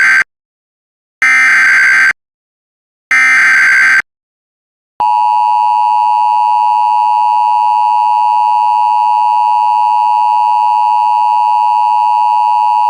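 Emergency Alert System header tones: the end of one SAME digital data burst, then two more one-second data bursts with silent gaps between. About five seconds in, the steady two-tone EAS attention signal (853 and 960 Hz) starts and holds.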